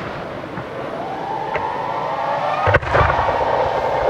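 Fireworks going off: a dense rush of sound, with one sharp bang a little under three seconds in.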